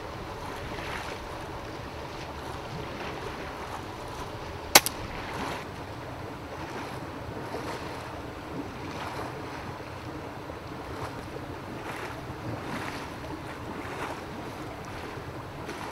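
Steady rushing noise of the fishery's water pumps, with a single sharp snap about five seconds in: a shot from the Daystate Huntsman pre-charged air rifle.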